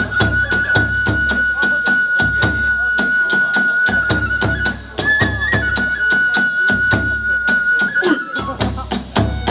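Kagura hayashi accompaniment: a transverse bamboo flute holding a long high note, stepping up briefly about halfway through, over a fast, steady beat of drums and small hand cymbals.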